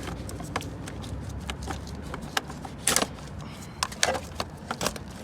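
Hand tools clicking and knocking against the car battery's terminals as the battery is disconnected before the airbag is removed: scattered sharp clicks, loudest about three seconds in, with a few more near the end.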